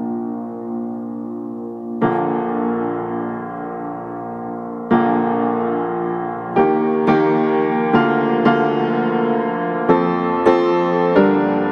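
Background piano music: slow, gentle notes and chords, struck more often in the second half.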